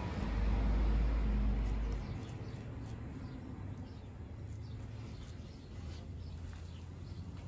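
Faint sizzling and light crackling of fava-bean patties frying in hot oil in a clay pot, with a low rumble during the first two seconds.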